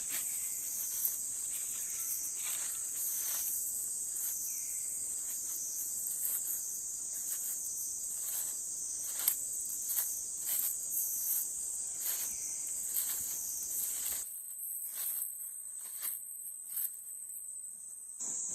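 Loud, high-pitched insect chorus droning steadily with a slow pulsing. Scattered short clicks or knocks sound over it, and about 14 seconds in the lower background falls away, leaving mostly the insects.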